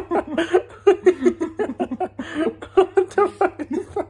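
People's voices chattering and laughing in quick, broken pulses.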